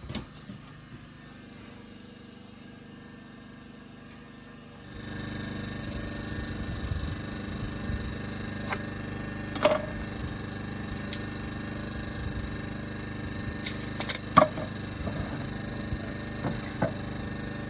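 Pallet boards being handled and set down on a pallet-wood work table, with a few sharp wooden knocks; the loudest come about ten seconds in and in a quick cluster near fourteen seconds. Under them a steady hum starts about five seconds in.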